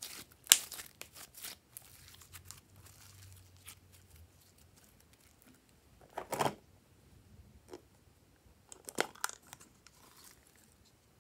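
Glossy slime being squeezed and pulled by hand, with sticky crackles and pops, a fuller squelch about six seconds in and a cluster of sharp clicks around nine seconds.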